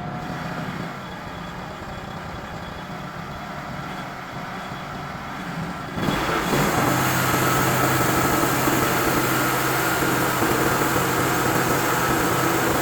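Sawmill engine running steadily, then about six seconds in the sound jumps to a louder, dense cutting noise as the saw blade enters a stack of boards to edge them.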